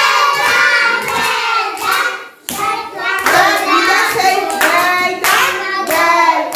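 Young children singing together while clapping their hands.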